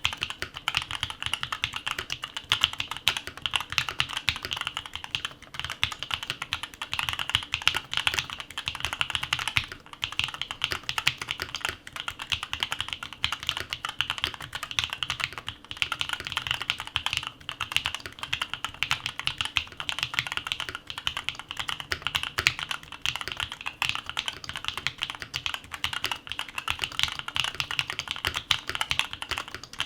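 Fast, continuous typing on an Odin Gaming Nova65 mechanical keyboard fitted with Tecsee linear switches: a dense run of key strokes with a few short pauses.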